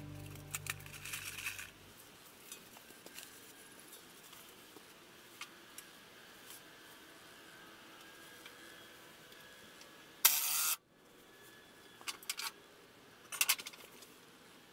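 Scattered small clinks and knocks of tools and hardware being handled, with one short loud burst of noise about ten seconds in and a few sharp clicks near the end. Background music fades out in the first two seconds.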